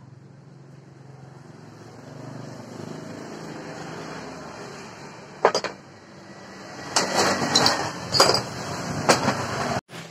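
Loose steel parts and a bladed angle grinder knocking and clattering on a workbench, one sharp knock about halfway and a run of louder knocks in the second half, over a steady low hum.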